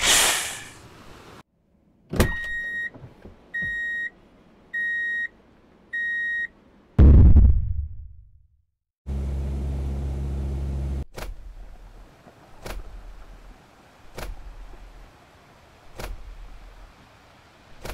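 A string of sound effects: a falling whoosh, then four electronic beeps on one high tone about a second and a quarter apart, then a loud low boom that fades. A low steady hum follows for about two seconds, and the rest is a series of short sharp knocks about every one and a half seconds.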